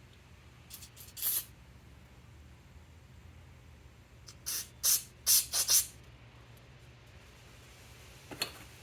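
Short bursts of spray from an aerosol can: a few about a second in, then a quick run of five between four and six seconds in, with one more near the end. The spray is being shot into a clogged fuel petcock to clear it.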